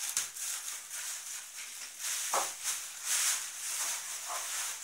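Thin plastic wrapping crinkling and rustling irregularly as it is handled and pulled off a new appliance, with a few sharper crackles.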